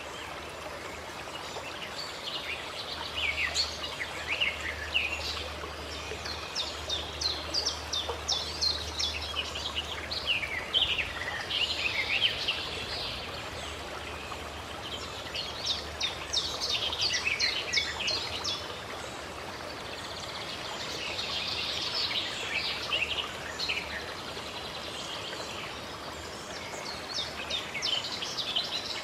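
Birds singing in repeated bouts of quick chirps and trills, each lasting a few seconds with short pauses between, over a steady hiss of running water.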